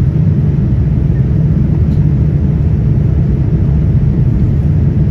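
Steady low rumble of an airliner's engines and rushing air, heard inside the passenger cabin.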